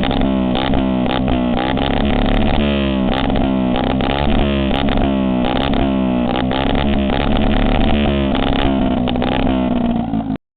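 An electronic gizmo sounding a steady buzzing drone under quick, repeating rising sweeps, about two or three a second, then cutting off suddenly near the end.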